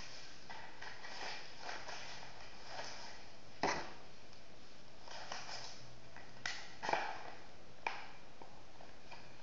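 A homemade cardboard toy rifle being worked by hand: cardboard parts rubbing and scraping, with a few sharp clacks, the loudest about four seconds in and a cluster of three between six and a half and eight seconds, over a steady hiss.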